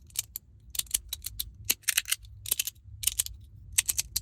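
3D-printed magnetic sandwich slider fidget clicking as its plastic plates are slid and snap together under strong magnets. The sharp clicks come in quick clusters, about two a second.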